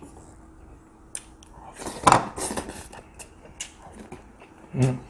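Close-miked eating sounds: wooden chopsticks clicking and scraping against a ceramic dish as a piece of stir-fried pork is picked up, with scattered sharp clicks and a louder mouth and dish sound about two seconds in. A short low hummed sound comes near the end.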